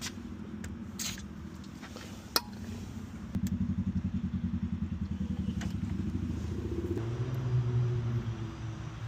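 An engine running with a rapid, even low pulse that starts about three seconds in and grows louder. A steadier hum joins near the end. A few sharp clicks come before it.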